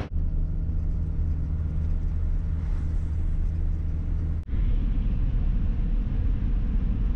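Taxi engine and road noise heard from inside the cabin while driving: a steady low drone. It breaks off for an instant about four and a half seconds in and resumes slightly louder.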